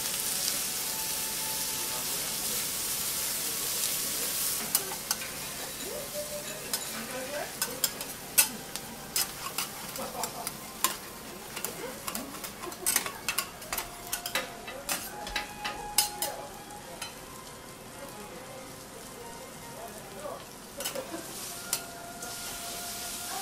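Yakisoba noodles and okonomiyaki sizzling on a hot iron teppan griddle. The hiss is steadiest in the first few seconds. Through the middle and again near the end, metal spatulas give many sharp taps and scrapes on the plate.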